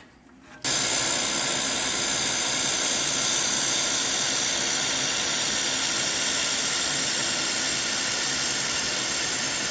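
Handheld laser welder running a wire-fed weld bead on an aluminum T-joint: a loud, steady hiss that starts abruptly just under a second in and holds level.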